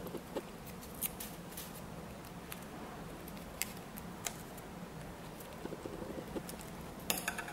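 Scissors snipping paper in short, irregular cuts, with a quick run of snips near the end.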